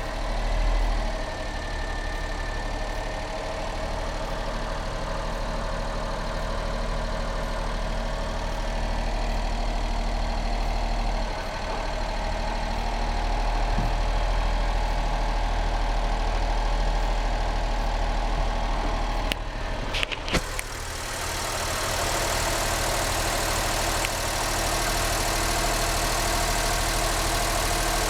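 Honda Acty Van HH6's small three-cylinder engine idling steadily just after being started, with a few sharp clicks about two-thirds of the way through.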